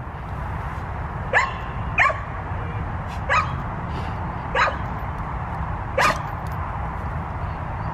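American bully dog giving five short, high barks about a second apart, each rising sharply in pitch.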